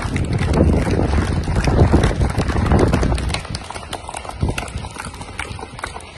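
A crowd clapping their hands, many sharp, uneven claps at once. A low rumble runs under the claps and stops about three and a half seconds in.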